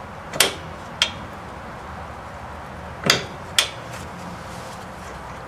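Two pairs of sharp metal clinks, one pair under a second in and one about three seconds in, as a steel bolt is worked back through the rear trailing arm's bushing and mounting bracket on a 2002 Mitsubishi Lancer.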